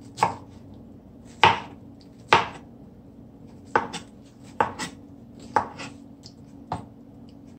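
Knife slicing a cored pineapple: about eight sharp cuts at uneven gaps.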